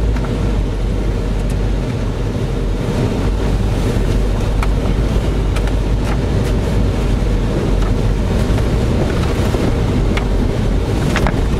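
Steady low rumble of a Toyota 4x4 pickup's engine and drivetrain heard inside the cab as it crawls slowly along a wet, muddy dirt trail, with occasional light clicks and rattles.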